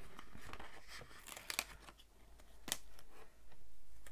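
Paper planner stickers being handled and peeled off their backing sheet: light rustling with a few short sharp crackles, the sharpest about halfway through.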